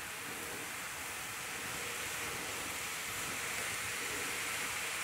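Grated beetroot sizzling steadily in ghee in a frying pan.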